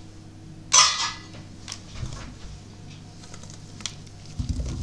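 Kitchen handling of a steel pot over a glass baking dish. About a second in there is a short, sharp scraping rasp, then scattered light clicks. Near the end comes a low tumbling as boiled diced potatoes slide out of the pot into the dish.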